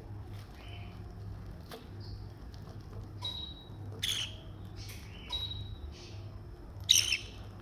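Baby budgies giving short, high-pitched begging chirps while being hand-fed formula, a scattering of squeaks, two of them louder.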